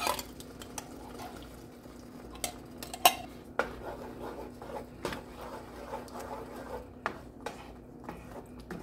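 A spoon scraping inside an emptied metal can, then a wooden spoon stirring a thick creamy filling in a nonstick pan, with scattered sharp clicks and knocks of the utensils against the pan, the loudest about three seconds in.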